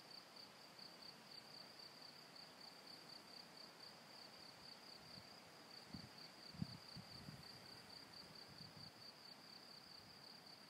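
Near silence with faint, steady insect chirping, a fast even pulse of a high note. A few soft low thuds come about midway.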